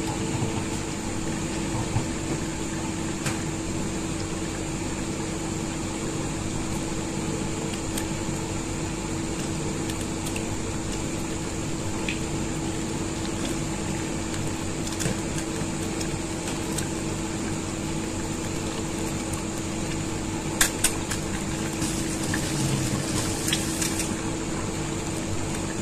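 Eggs frying in oil in a nonstick pan: a steady sizzle over a constant hum, with a few sharp knocks, two of them close together about two-thirds of the way through.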